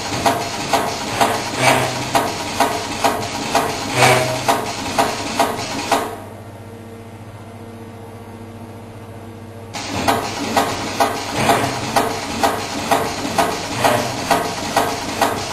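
Gurgen CNC-RV01 CNC rivet machine setting rivets: sharp, evenly spaced press strokes about two a second over a steady motor hum. About six seconds in the strokes stop for roughly four seconds, leaving only the hum, then start again at the same pace.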